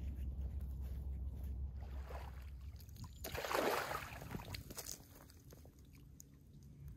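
Footsteps on a dry, leafy dirt trail over a steady low rumble, then about halfway through a loud splash and slosh as a collapsible CNOC water bag is plunged into a pond and scooped full.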